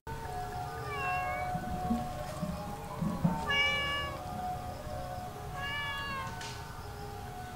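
A cat meowing three times, about two and a half seconds apart, over soft background music with long held notes.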